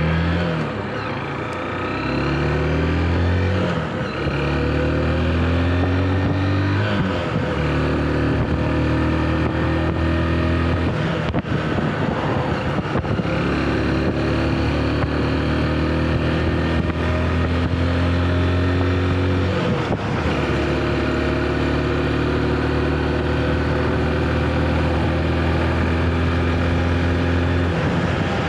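Motorcycle engine heard from the rider's seat, pulling up through the gears in the first seven seconds or so, its pitch climbing in steps with a short break at each shift. It then runs at a steady cruise, easing off briefly about twelve and twenty seconds in, over a steady rush of wind.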